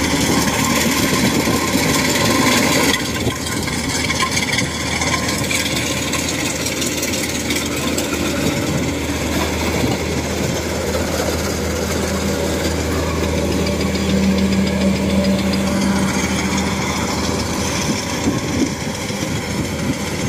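Thai-built 105 tracked rice combine harvester running steadily as it cuts and threshes rice: continuous engine and machinery noise with a steady low hum.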